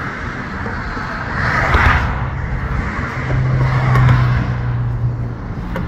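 Road traffic on the bridge lanes beside the walkway: cars going past with tyre and engine noise that swells twice, about two seconds in and again about four seconds in. A steady low engine hum runs through the second half.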